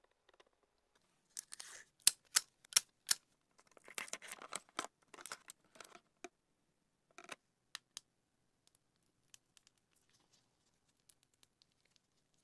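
Hands handling a silicone resin mold and a small pick or toothpick: a few sharp clicks and taps about two to three seconds in, a stretch of scratchy rustling after them, then scattered faint ticks.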